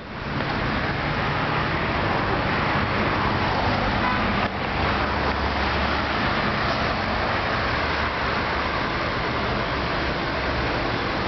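City street traffic: cars driving past with a steady mix of engine and tyre noise and a low engine rumble. The sound drops out briefly about four and a half seconds in.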